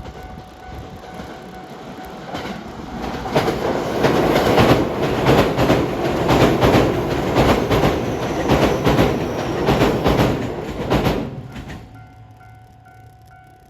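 A train passing close by. The wheel noise builds over the first few seconds, then comes a rapid clatter of wheels over rail joints for about eight seconds. It dies away sharply about twelve seconds in.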